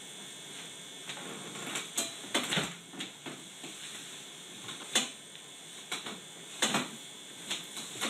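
Handling sounds of a side-lying pelvic adjustment: the patient's body and clothing shifting on a padded treatment table, with scattered sharp clicks and soft knocks, the sharpest about five seconds in and again near seven seconds.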